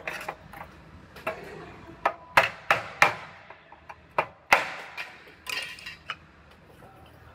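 Hand snips cutting thin steel body panel along a cut line: a series of sharp, irregular metal snips, a few louder ones with a brief metallic ring.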